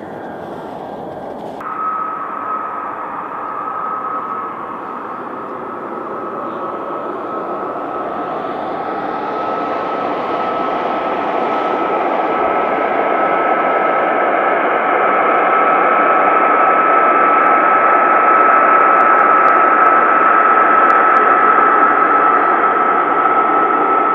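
F-35B Lightning II jets' F135 turbofan engines running as the jets taxi, a steady rushing noise under a high, even whine. The sound grows gradually louder as the jets come closer.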